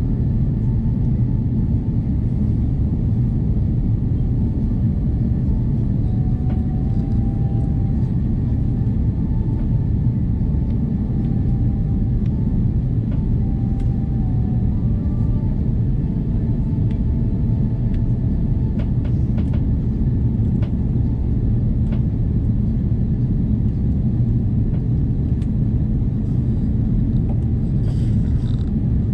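Airbus A330 cabin noise: the steady low rumble of the engines and airflow heard from inside the passenger cabin, unchanging throughout.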